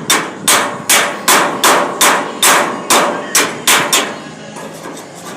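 Hammer striking metal, about ten hard blows at a steady pace of roughly two and a half a second, each with a short ring, stopping about four seconds in.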